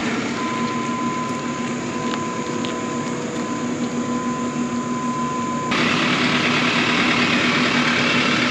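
Farm tractor engine running steadily while the tractor is pulled into position. About two-thirds of the way through, the sound changes abruptly and gets louder.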